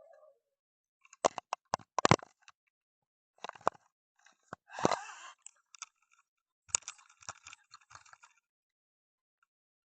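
Irregular knocks, clicks and scraping in several clusters, loudest about a second and two seconds in, with a longer scrape around five seconds.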